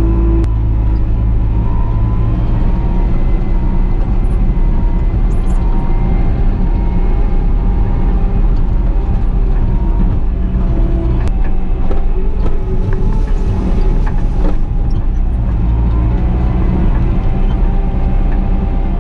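Bobcat T650 compact track loader's diesel engine running steadily, with a few faint knocks over it.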